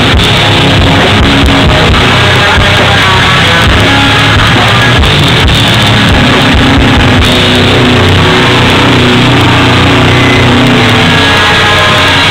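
Live hardcore band playing loudly: distorted electric guitars, bass and drums.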